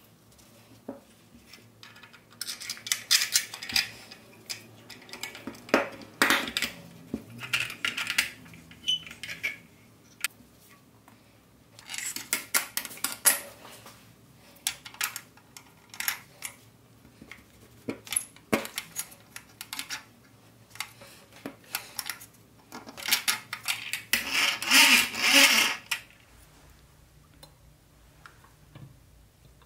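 Small metal and plastic parts of a vintage Nylint toy roadster clicking, clinking and rattling as they are handled and fitted together, with wheels being pushed onto the axles. The sound comes in several short clusters with quiet gaps between, the loudest near the end.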